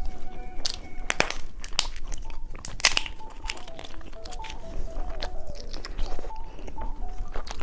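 Candy being bitten and crunched close to the microphone: a quick, irregular run of sharp crunches and cracks.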